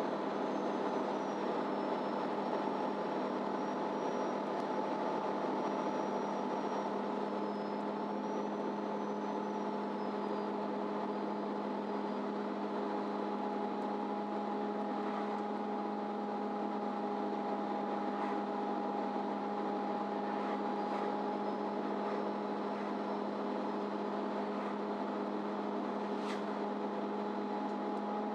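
MAN Lion's City Ü bus's diesel engine running steadily, heard from on board: an even hum that holds the same pitch throughout, with a faint high whine and a few light clicks and rattles.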